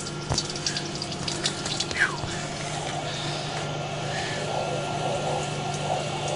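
Rinse water splashing and running off a Carlyle 06E refrigeration compressor as the coil cleaner is washed off, heavier from about halfway in, over a steady low hum.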